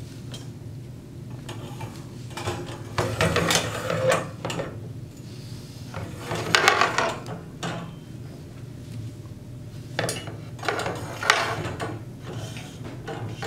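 Stainless-steel wire shower caddy baskets being slid onto a metal pole, clanking and scraping metal on metal in three bursts a few seconds apart.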